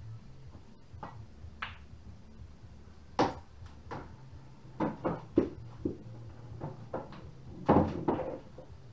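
Irregular sharp knocks and thumps around a pool table and wooden floor: faint clicks early, then about a dozen louder knocks and thumps, the loudest cluster close by near the end.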